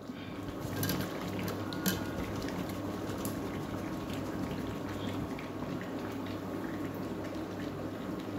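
Chicken curry bubbling at a simmer in a metal pot, with scattered light clicks and scrapes from a ladle stirring in the potatoes. One sharper knock comes about two seconds in.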